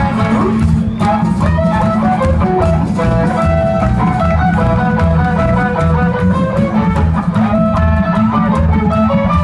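Live rockabilly band playing a guitar-led instrumental passage: a melodic guitar line over a steady, pulsing bass and drum beat.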